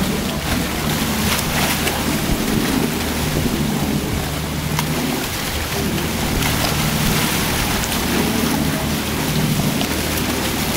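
Sharks in a feeding frenzy thrashing at the surface: a steady splashing hiss of churned water, with a low steady machine hum underneath.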